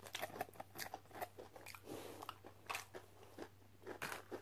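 Close-up chewing and biting of crunchy fried fast food, a run of sharp, irregular crunches with mouth sounds between them.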